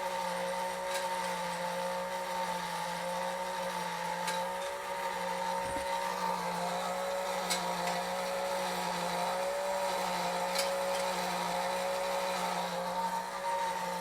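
Lionel #164 log loader's rebuilt electric motor running steadily, driving its chain conveyor that lifts the logs up to the hopper, with a faint click about every three seconds.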